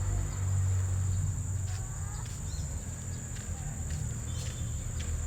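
Blue-crowned hanging parrot (serindit) giving scattered short, thin chirps, over a steady high insect buzz and a low hum.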